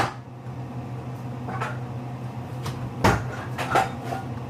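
A few light knocks and clatters of kitchen items being handled, with one sharper knock about three seconds in, over a steady low hum.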